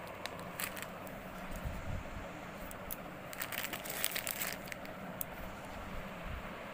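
Clear plastic packaging crinkling as a wrapped stainless-steel mesh strainer is handled, in short bursts that are busiest in the middle, over a steady low background hum.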